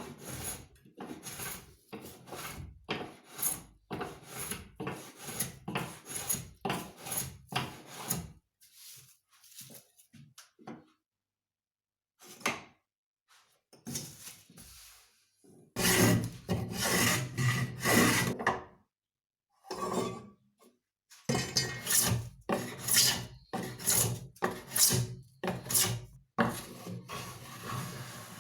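Wood being worked by hand in repeated back-and-forth scraping strokes, about two a second. The strokes thin out for several seconds in the middle, come back loudest, stop briefly, then carry on.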